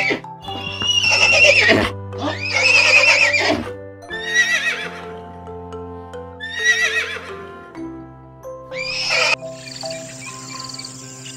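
A horse whinnying five times, each call a shaky, quavering neigh, the first two the longest, over background music.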